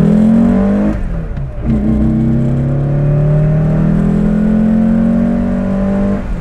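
Porsche 356's air-cooled flat-four pulling hard under full throttle with loud intake noise. Its pitch rises, breaks briefly for an upshift about a second in, then climbs steadily through the next gear before the throttle eases near the end.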